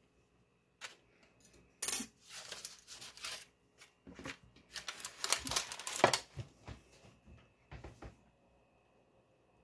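Parchment paper rustling, with a few sharp clicks, as a slice of bread is handled on a metal loaf pan. The loudest click comes just before two seconds in, and the handling stops about eight seconds in.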